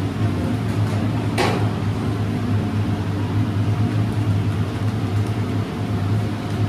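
A steady low machine hum, with one sharp click or clack about a second and a half in.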